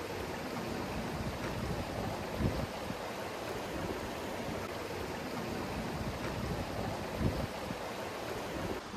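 Shallow rocky mountain stream flowing, a steady rush of water over stones, with two brief low thumps partway through.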